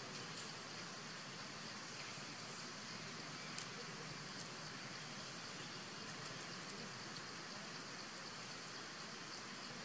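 Steady faint hiss of outdoor background noise, with a few faint ticks.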